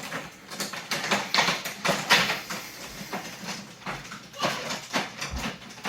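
Irregular rustling, clicks and light knocks of things being handled, typical of ornaments and artificial tree branches being moved about.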